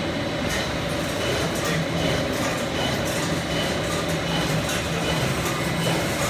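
Axle-tube face-and-center machine running: a steady mechanical hum with several held tones, low and high, and faint scattered ticks.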